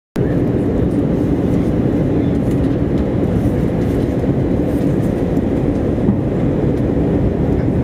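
Steady cabin noise of an Airbus A320 descending on approach, heard from a window seat beside the engine: a deep, even rumble of engines and airflow.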